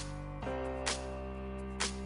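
Background pop music with a steady beat: a sharp hit about once a second over held chords, which change about halfway through, with no singing.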